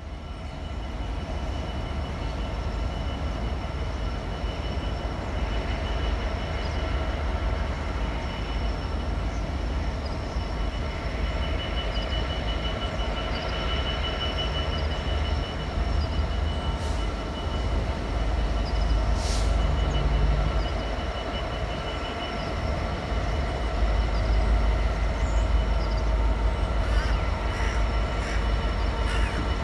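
Class 66 diesel locomotive approaching at low speed, its two-stroke V12 engine running: a steady deep rumble with thin steady tones over it, getting louder about 24 seconds in.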